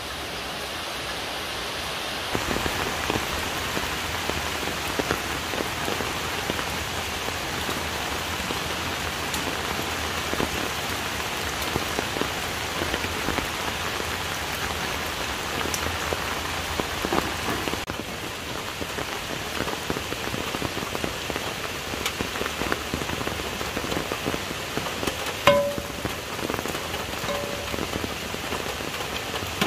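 Steady rain falling, a constant hiss with scattered drip ticks. About 25 seconds in there is a single sharp knock.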